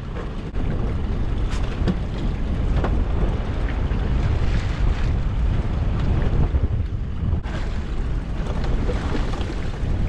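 Wind rumbling on the microphone aboard a small open fishing boat, with a few scattered knocks as a pot rope is hauled in by hand and a lobster pot comes over the side.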